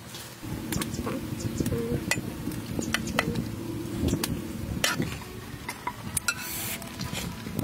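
Repeated sharp clinks and knocks of metal utensils against a wok and plates, over a steady low background noise.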